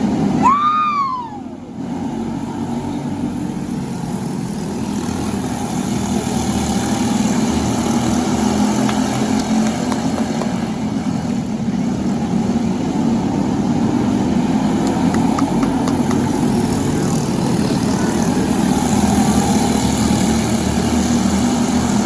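Racing karts with Briggs & Stratton LO206 single-cylinder four-stroke engines running on track, a steady drone that grows louder from a few seconds in. About half a second in, a brief tone rises and then falls in pitch.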